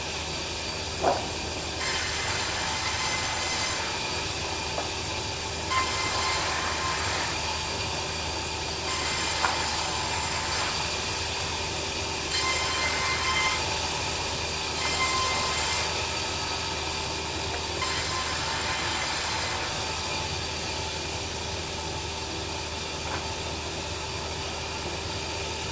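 A bandsaw mill running with a steady hum while its blade cuts through timber. The hiss of the cut swells and drops back every few seconds.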